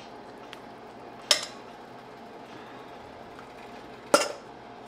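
Two sharp metallic clinks against a stainless steel pot, about three seconds apart, each with a brief ring, as fish slices are set into the simmering stew.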